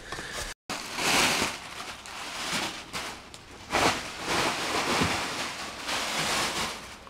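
Rustling and handling noise that swells and fades several times, as the boxed PC parts and their packaging are moved about, with a brief dropout just after the start.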